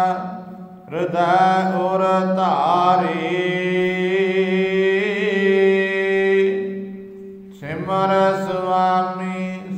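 A man chanting Gurbani in a slow, melodic recitation over a steady low drone. The voice glides between notes and holds one long note in the middle, with short breaks near the start and about two-thirds through.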